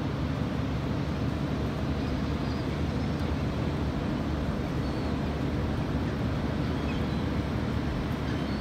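Steady wind noise on the microphone mixed with ocean surf: an even, low rush with no breaks.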